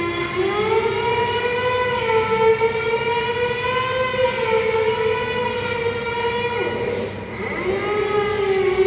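Air-raid siren wailing. Its pitch climbs, holds with a slight waver, then sags and climbs again about three-quarters of the way through.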